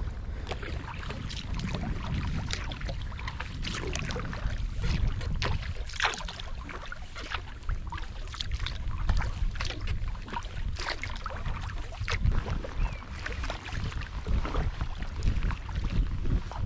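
Sea kayak being paddled: the paddle blades dip and splash in irregular strokes and water laps against the hull, with wind buffeting the microphone as a steady low rumble.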